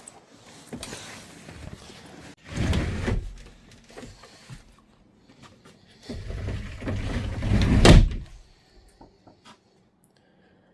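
Two spells of scraping and rustling handling noise, about three seconds in and from six seconds in, the second ending in a loud knock just before eight seconds.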